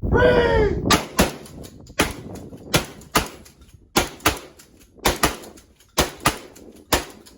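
A short voice-like call at the start, then about a dozen gunshots fired at an irregular pace, sometimes two in quick succession, as two shooters fire together at the range.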